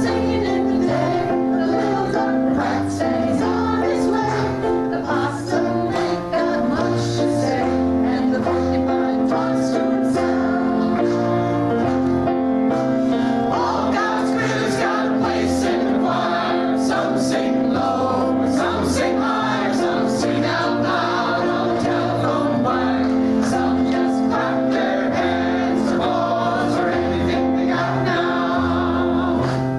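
Church choir singing with instrumental accompaniment, a moving bass line underneath: music during the offertory.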